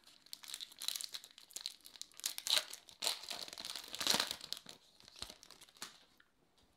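Foil wrapper of a Topps baseball card pack crinkling and tearing as it is ripped open and the cards are slid out, with the loudest rips between about two and four seconds in, fading out near the end.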